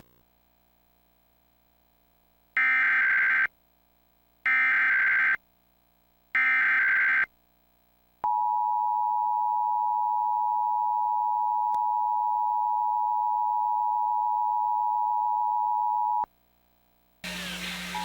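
Emergency Alert System header: three one-second bursts of screeching digital data tones, then the two-tone attention signal (853 and 960 Hz) held steady for about eight seconds before cutting off. Near the end a low buzz with hiss comes in.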